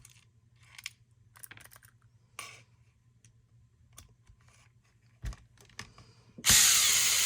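Light clicks and rattles as an airsoft rifle's pistol grip is handled and seated. About six and a half seconds in, a battery drill starts running loud and steady, driving in the grip screw.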